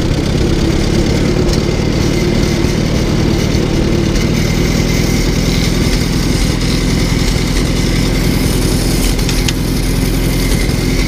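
Allis-Chalmers WD-45 tractor engine running steadily as the tractor drives along in gear, heard up close from the driver's seat.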